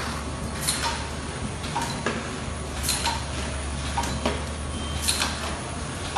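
Demtec potting machine and pot conveyor running: a steady low hum with sharp mechanical clacks recurring about once a second.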